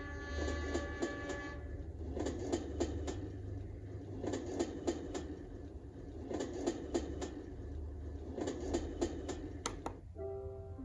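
Train soundscape from a white noise machine's speaker: rhythmic clickety-clack of rail wheels in clusters about every two seconds, with a steady horn chord that stops about a second and a half in. Near the end it switches to a melody of soft held notes, the machine's next sound.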